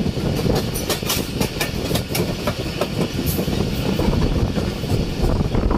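Passenger train running along the track at moderate speed, its wheels clattering over the rails with a steady rumble and many sharp clicks, heard from an open carriage doorway.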